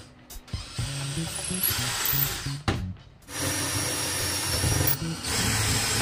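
DeWalt cordless drill running in three spurts of a second and a half to two seconds each, working into a wooden cabinet door, with short pauses between the runs.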